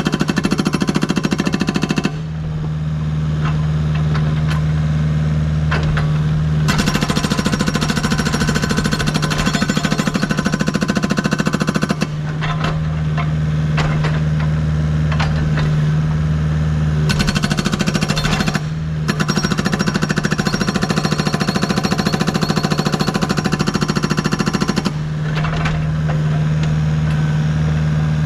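Agrotk 680 hydraulic breaker on a Kubota U55 mini excavator hammering rock in rapid, continuous blows. It runs in spells of several seconds, stopping three times, when only the excavator's engine and hydraulics drone steadily.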